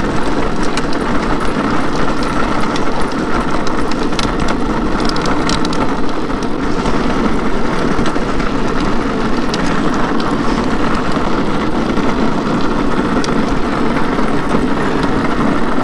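Drift trike's wheels rolling on asphalt at speed, a loud steady rumble, with a few light clicks scattered through it.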